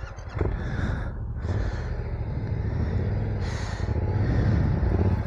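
Adventure motorcycle engine pulling at low, steady throttle on a difficult off-road section, slowly growing louder, with a brief hiss about three and a half seconds in.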